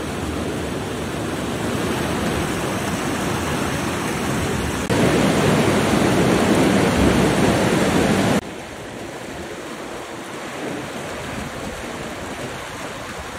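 Flash-flood water rushing through a rambla as a steady rushing noise. It jumps louder about five seconds in and drops sharply quieter about eight and a half seconds in.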